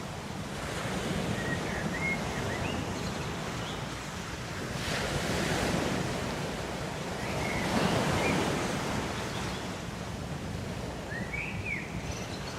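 Ocean waves washing on a shore, with surges swelling about five and eight seconds in. A few faint short chirps sound over it.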